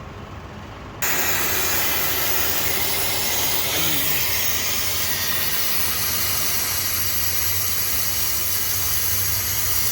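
Pressurised gas hissing steadily out of a car's air-conditioning line, starting abruptly about a second in.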